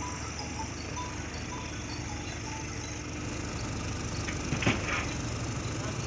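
John Deere combine harvester's diesel engine running steadily, with one short knock about three-quarters of the way through.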